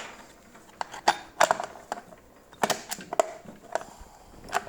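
Irregular clacks and knocks of shredder parts being handled and fitted by hand during assembly: a string of sharp hits spread unevenly through the few seconds.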